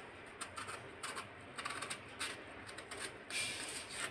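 Kitchen knife scraping and slicing the green peel off a raw plantain: a series of short rasping strokes at uneven intervals, with a longer, louder stroke a little after three seconds.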